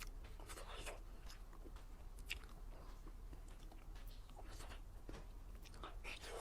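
Close-miked eating sounds of someone biting and chewing a homemade dessert, with small crisp clicks and crackles scattered through.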